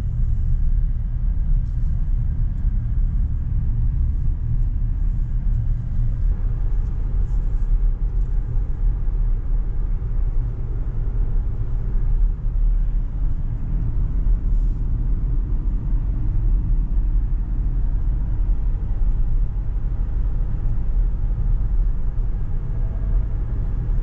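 A car driving, with a steady low road rumble.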